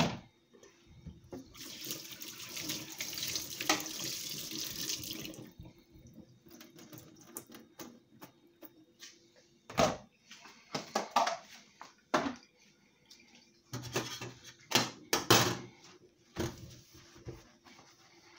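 Kitchen tap running into a stainless-steel sink for about four seconds, followed by a scattering of knocks and clunks as containers are handled and set down.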